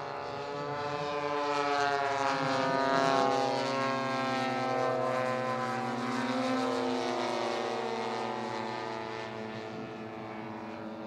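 A pair of large-scale radio-controlled warbird models flying past, their engines and propellers droning with a pitch that drifts slowly up and down. The sound swells to its loudest a few seconds in and eases off near the end.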